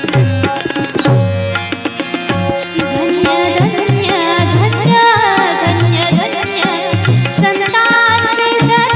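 Devotional music led by tabla, with deep drum strokes that bend in pitch under a melody of held notes that comes in about halfway through.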